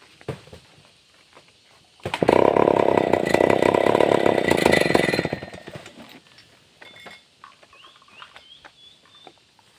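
Chainsaw engine revved hard for about three seconds, starting abruptly about two seconds in and then dropping away.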